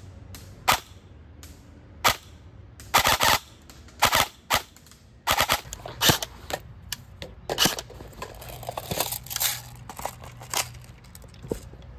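Airsoft BBs striking a wooden board, heard from behind the wood: sharp cracks, some single and some in quick strings of two or more, at irregular intervals.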